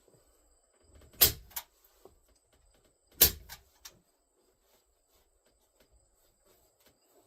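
Staple gun firing twice, about two seconds apart, each shot a sharp clack followed by a lighter click, driving staples through carpet into a wooden rail.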